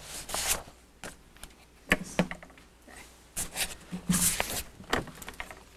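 Handling noise at a lectern microphone: scattered clicks and knocks, with brief rustling in between.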